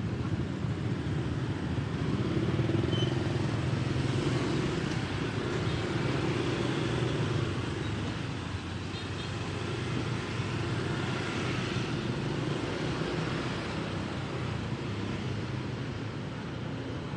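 Motorcycle engine running at low speed in slow street traffic, with the steady drone of other motorbikes and scooters close around; slightly louder for a few seconds near the start.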